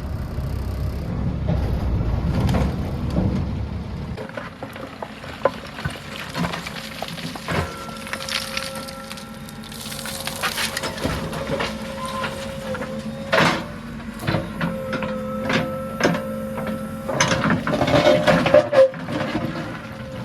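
JCB 3DX backhoe loader working mud: a heavy low rumble for the first four seconds, then the machine running with a steady whine, broken by repeated knocks, cracks and crunches as the bucket digs and handles the soil.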